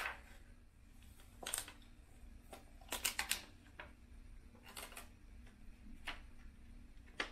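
Thin plastic membrane sheets of a keyboard crackling and clicking as they are handled and peeled apart, in short bursts: one about a second and a half in, a quick run of several around three seconds, and single ones near five, six and seven seconds.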